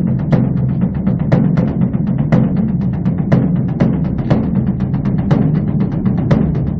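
Beopgo, the large Korean Buddhist dharma drum, beaten with wooden sticks: a continuous deep rumble of rapid strokes, with a sharp accented stroke about once a second.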